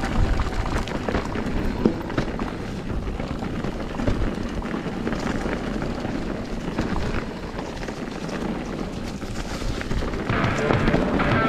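Riding noise from a bike on a rough trail: wind rushing over the microphone with a steady run of rattles and knocks from the bike over the ground.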